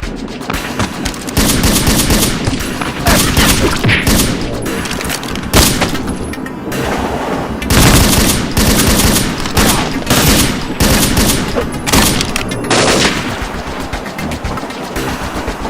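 Gunfire: runs of rapid shots in quick succession mixed with louder single shots, going on throughout with the heaviest hits about five and eight seconds in.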